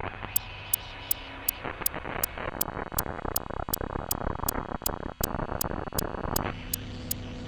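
Improvised experimental electronic synthesizer music: harsh, noisy synth textures over a steady high clicking pulse of nearly three clicks a second. Near the end the noise drops away, leaving a low sustained drone under the clicks.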